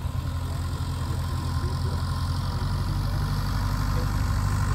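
A piston engine running steadily at low revs, a low hum that grows slightly louder toward the end.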